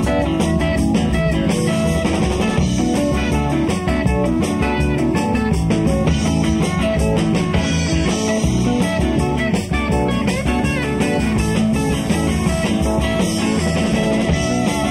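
Southern rock band playing live: electric guitars over bass and a drum kit, the music running steadily.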